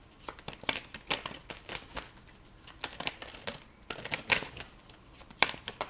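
A deck of tarot cards being shuffled by hand, giving irregular quick flicks and slaps of card on card.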